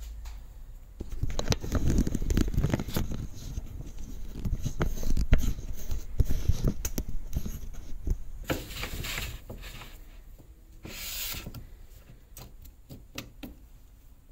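Hands working with small tools and parts at a workbench and metal lathe: irregular clicks, knocks and scrapes. There are dull bumps in the first half and two short hissing scrapes in the second.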